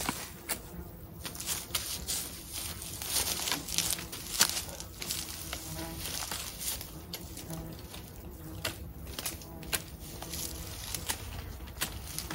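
Rustling with irregular snaps and clicks from tall hogweed stems and grass as they are walked through and handled.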